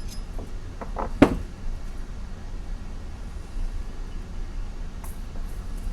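A few sharp metallic knocks and clicks about a second in, the loudest a single clack, over a steady low hum, with faint ticks near the end: a tool working against the Norton Atlas crankshaft while sludge is dug out of its sludge trap.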